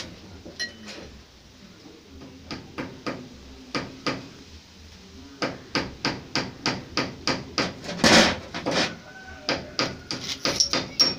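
Sharp metallic taps and clicks from small metal parts of a homemade gas turbine being handled and fitted by hand. A few scattered taps give way to a quicker run of about four a second, with a louder clatter about eight seconds in.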